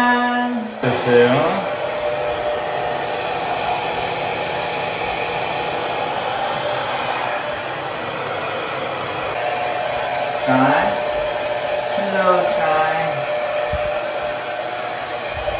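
Handheld hair dryer blowing steadily as it dries a wet puppy's coat, with a few brief vocal sounds over it near the start and about ten and twelve seconds in.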